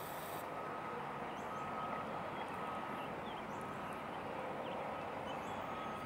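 Backup alarm on construction equipment beeping steadily, about one beep a second, over a steady background hiss, with a few faint bird chirps.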